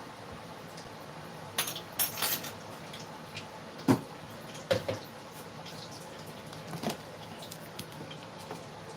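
Kitchen utensils clinking and knocking against pots and bowls: a handful of separate clatters, the sharpest about four seconds in, over a steady faint hiss.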